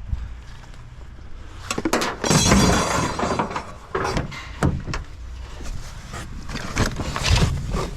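Knocks and clattering of objects being handled and set down, with a longer scraping rattle about two seconds in and a few sharp knocks after it, over a steady low rumble.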